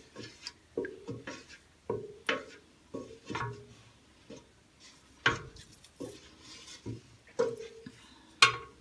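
Wooden spatula stirring thick cold-process soap batter at trace in a stainless steel stockpot, knocking and scraping against the pot in irregular strokes, some knocks followed by a brief ring from the pot.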